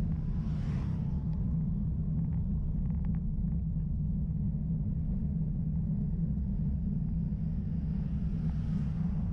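Steady low rumble of wind and road noise on a camera mounted on a bicycle climbing a lane. A motorcycle passes in the first second. A van approaches and passes near the end.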